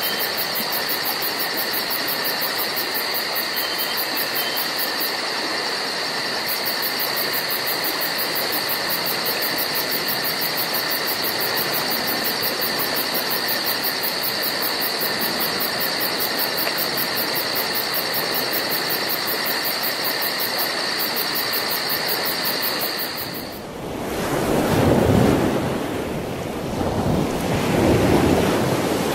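Even steady hiss with two faint steady high whistles, like the noise of an old film transfer. About 24 seconds in it changes to gusty, uneven wind and water noise that swells and falls.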